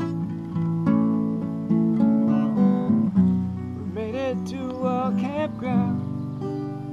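Steel-string acoustic guitar played with strummed and picked chords at an easy pace. A voice sings a short line over it from about four seconds in.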